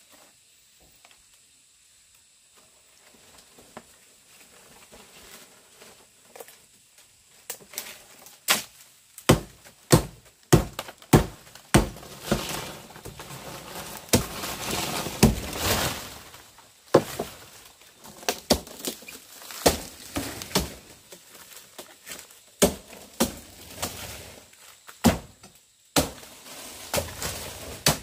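Blade chopping bamboo: quiet at first, then irregular sharp strikes from about eight seconds in, with a few seconds of steady rustling noise between them in the middle.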